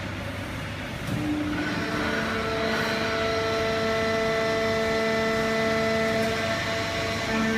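Fully automatic horizontal hydraulic baling press running: a steady machine hum with a whine of several steady tones, getting louder about a second in, the tones shifting pitch a couple of times.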